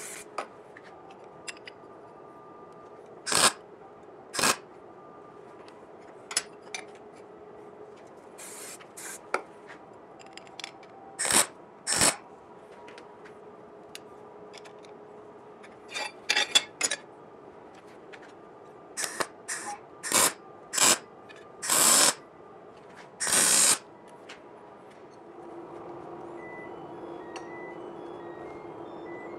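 About a dozen short, separate spurts under a second each: an aerosol spray can hissing, and a MIG welder crackling as it tacks steel sheet and square tube. The spurts come closer together in the second half.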